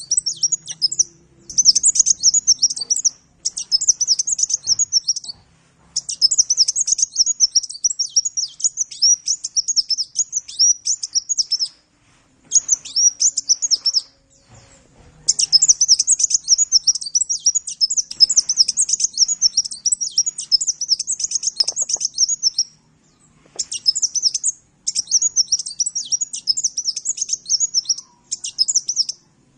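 Sunbird (the Indonesian 'kolibri') singing a rapid, high, chattering twitter in bursts of one to several seconds with short breaks between them.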